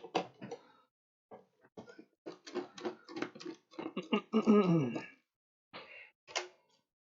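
Screwdriver unscrewing the plastic AM4 cooler retention brackets from a motherboard: a run of irregular small clicks, taps and rattles. About four and a half seconds in there is a short pitched sound that falls in pitch.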